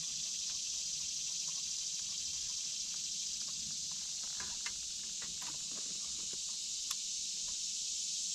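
A chorus of summer insects making a steady, high-pitched drone, with a few faint clicks.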